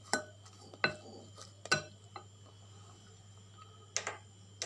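A spoon knocking against a glass mixing bowl as grated carrot and shredded vegetables are tipped in and stirred: three sharp clinks in the first two seconds, then two more near the end.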